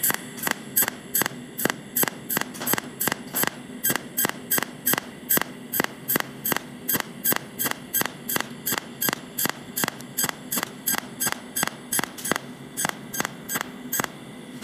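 Cold welding machine spot-welding 316 stainless steel: a sharp snap with each pulse of the arc, repeating evenly about three times a second, over a steady hum.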